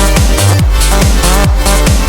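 Electronic dance music with a steady driving beat, pulsing bass and falling bass sweeps.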